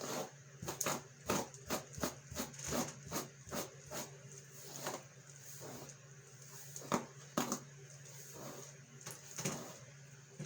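Hairbrush strokes through hair, a quick run of about two or three strokes a second for several seconds, then a few slower scattered strokes, over a faint steady low hum.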